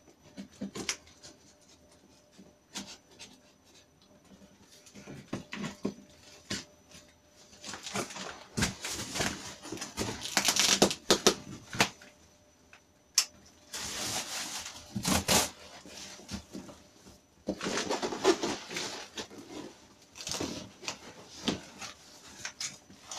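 Cardboard box and plastic packing wrap being handled: rustling and crinkling in several bursts, with scattered knocks and taps against the box.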